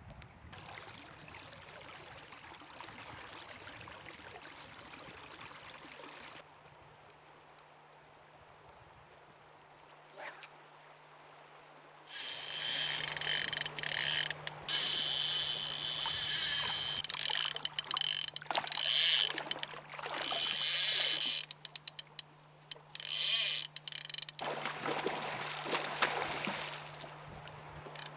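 Fly reel's click-and-pawl drag ratcheting loudly in rapid on-and-off runs, a sign of line being pulled off the reel, as by a hooked salmon. Before it, the river's flow hisses steadily.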